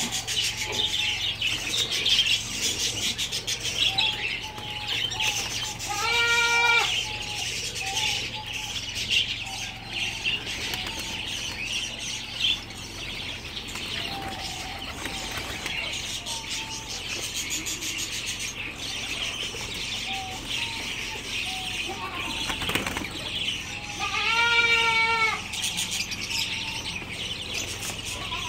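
Pigeons flapping their wings as they land on and jostle around a hand to eat seed, over a steady background of bird chirping. Twice, about six seconds in and again near 24 seconds, a short pitched call rises and falls.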